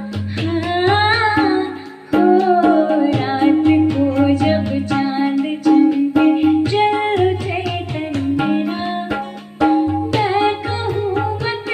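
Indian film-song music: a sliding, ornamented melody line over steady low bass notes and regular percussion strikes.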